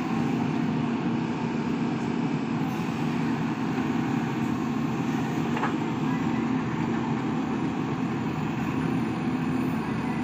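Diesel engine of a JCB 3DX backhoe loader running steadily as the backhoe arm digs soil, a constant low hum with no revving.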